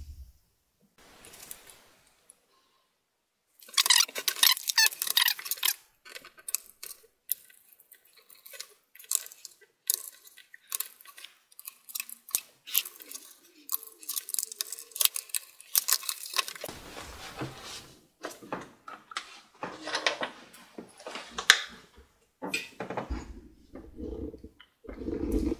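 Clicking and clattering of a plastic laptop case being handled and screwed: the laptop is turned over and its bottom-case screws are driven back in with a small screwdriver. A few dull thumps in the second half as the laptop is moved and set down.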